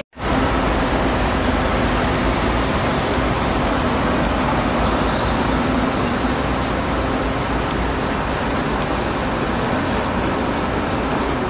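City buses idling in a BRT bus terminal: a steady engine rumble mixed with traffic noise.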